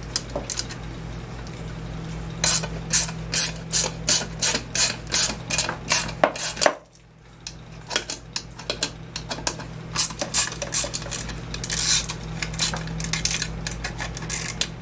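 A ratchet wrench clicking in quick runs as the muffler bolts are backed out of a small two-stroke engine, with a short pause about halfway through, over a steady low hum.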